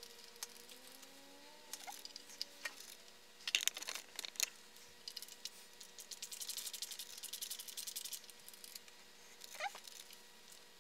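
Screwdriver backing screws out of a mini H1 projector: a cluster of sharp clicks, then a long run of quick light ticks and scrapes. Faint steady tones fade out in the first few seconds.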